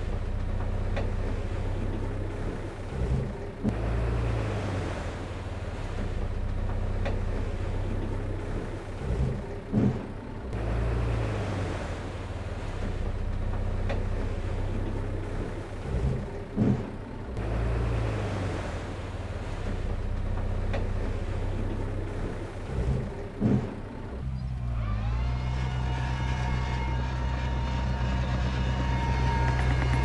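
Heavy diesel earthmoving machinery running steadily, with pairs of clunks every six or seven seconds. About 25 seconds in, a louder engine note rises and then holds steady, with a whine over it.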